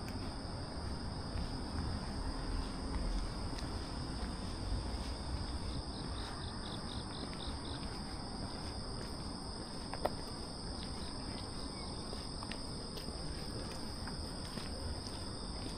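Evening chorus of crickets and other singing insects: a steady high trilling, with a short run of rapid, evenly spaced chirps from another insect near the middle, over a low background rumble. A single sharp click about ten seconds in.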